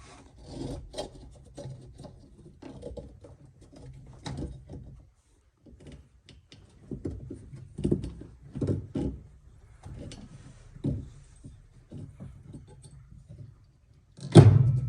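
Irregular knocks and clunks of washing-machine parts and tools being handled during a drive-belt repair, with one heavy thunk near the end that is the loudest sound.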